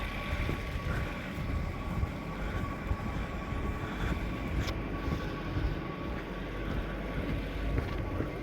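4x4 pickup truck under way on a rough off-road track, its engine running steadily with a low rumble and a thin steady whine. There is one sharp click about four and a half seconds in.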